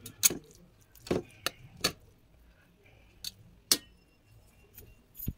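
A metal spoon clinking and scraping against a metal plate while spreading rice, several sharp clinks at uneven intervals.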